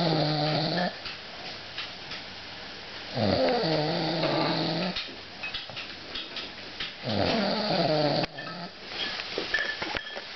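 A dog snoring loudly in a steady rhythm: one snore ends about a second in, and two more come at about 3 and 7 seconds. Each is a pitched snort of one to two seconds that drops in pitch as it starts, with quieter breathing between.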